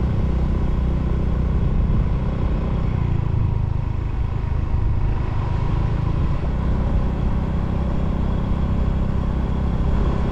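Steady low rumble of a motor vehicle running on the road.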